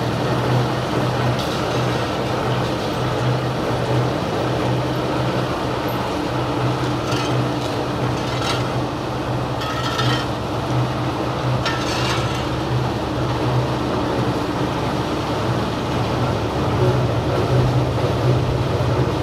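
Ginning plant machinery running with a steady low hum. A few short scraping sounds come through near the middle.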